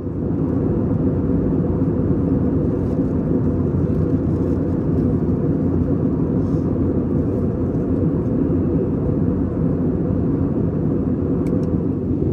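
Jet airliner cabin noise in flight: the steady, even rush of engines and airflow, heaviest in the low end, heard from a passenger seat.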